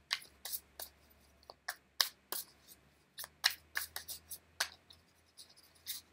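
Twin Flame Oracle cards being shuffled by hand: a run of short, sharp clicks and slaps at irregular spacing, about three a second, as the cards strike one another.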